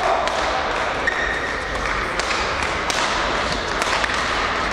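Badminton rackets striking shuttlecocks on several courts of a large sports hall: a scatter of sharp taps over a steady background of hall noise and faint voices, with a brief squeak about a second in.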